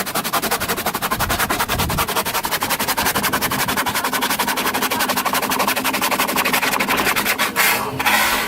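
A power saw cutting through a wooden deck plank, a fast, even rattle of strokes that runs for about seven and a half seconds and then stops, followed by a couple of short noisy bursts.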